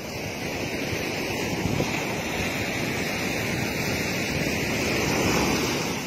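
Atlantic Ocean surf breaking and washing up the beach, a steady rush that grows slowly louder toward the end.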